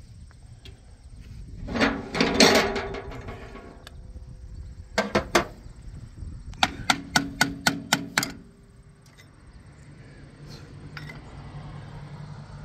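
Metal-on-metal work on a rusted tractor alternator mount. A harsh ringing metallic sound lasts about two seconds near the start. Later come three quick knocks, then a run of about eight evenly spaced ringing hammer taps on steel, the kind used to work seized bolts loose.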